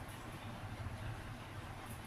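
Steady low electrical hum with faint hiss.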